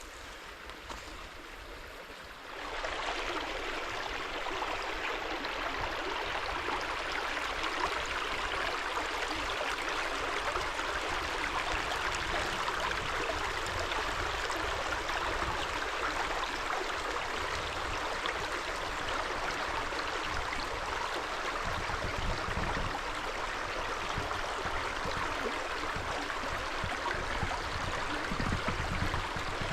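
Creek water flowing and rushing steadily, getting louder about two and a half seconds in.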